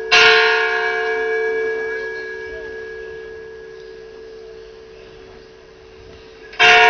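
A bell struck once right at the start, its clear tone ringing on and slowly fading for several seconds, then struck again near the end: the bell rung at the elevation of the chalice during the consecration of the Mass.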